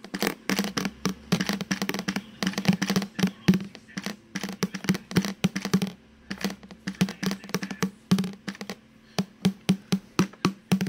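Toy drum with a plastic drumhead being beaten irregularly, each hit a short hollow thud. The hits come in quick runs, with a short pause about six seconds in and another near nine seconds.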